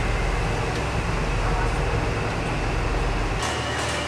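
Steady, loud machinery drone of a ship's engines heard inside a cabin, with a deep low hum under a dense rushing noise. The deepest part of the hum drops away about three and a half seconds in.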